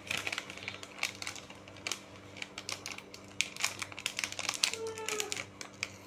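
Plastic ice cream bar wrappers crinkling and crackling as fingers handle and pull at a packet's crimped end seal, giving irregular sharp crackles.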